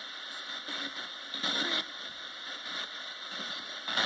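Steady hiss of static from a Roberts radio, with two brief louder surges of noise, about a second and a half in and again near the end.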